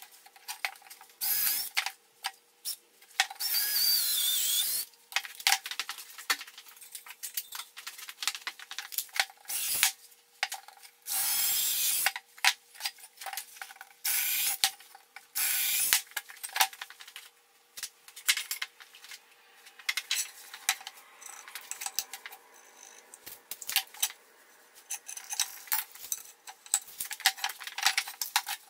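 Cordless drill boring into 2x4 boards in about six short bursts of a second or two each, the longest near the start. Between the bursts come knocks and clatter as the boards and the drill are handled.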